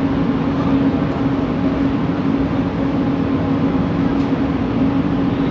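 Bombardier Innovia ART 200 linear-motor metro car heard from inside while running: a steady motor hum under continuous rolling noise.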